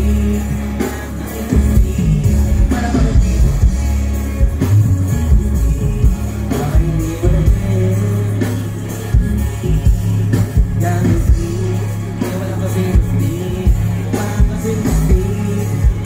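Loud hip-hop backing track with heavy bass played through a stage PA, with a rapper's voice over it through the microphone.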